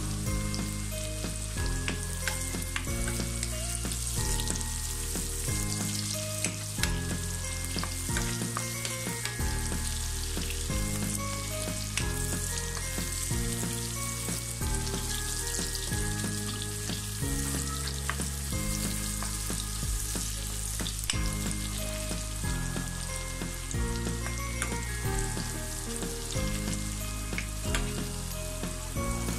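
Sliced onions and green chillies frying in hot oil in a wok: a steady sizzle with crackles, stirred with a spoon now and then. Background music with a slowly changing bass line plays underneath.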